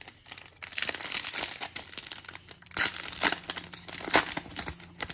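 A trading-card pack wrapper being torn open and crinkled by hand: an irregular crackling with sharp spikes that starts about a second in.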